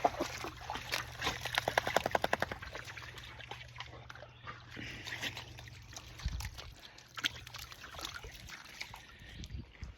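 A dog splashing and sloshing in shallow creek water: a quick run of spattering in the first two or three seconds, then lighter splashes and trickling water.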